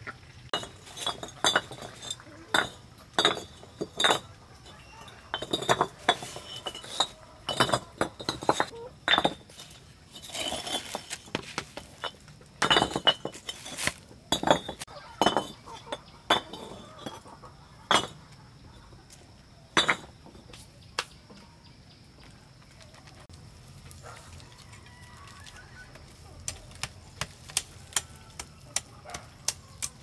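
Irregular sharp clinks and knocks of hard objects being handled and struck, coming thick and fast for most of the first twenty seconds, then a few lighter clicks near the end.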